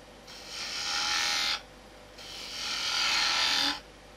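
3/8-inch high-speed-steel spindle gouge cutting a cove into wood turning on a lathe: two cuts, each about a second and a half long with a short pause between, the first stopping abruptly.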